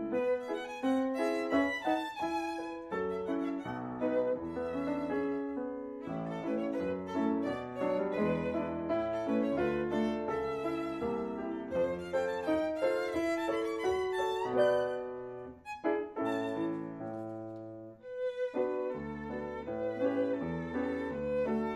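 Background music led by violin, with a moving melody over a lighter accompaniment; it dips briefly twice in the second half.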